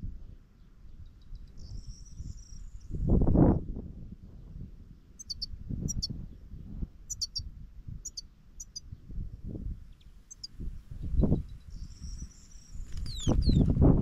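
Small finches calling: scattered short high chirps through the middle, and a buzzy call twice, about two seconds in and near the end. Wind buffets the microphone with low rumbles, loudest about three seconds in and near the end.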